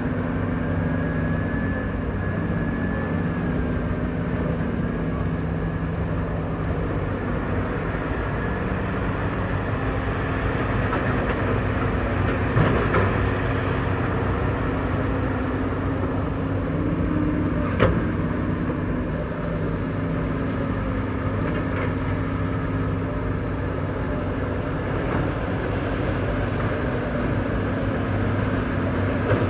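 Heavy diesel engine of earthmoving machinery running steadily under load, with a couple of sharp knocks: one about 13 seconds in and a louder one about 18 seconds in.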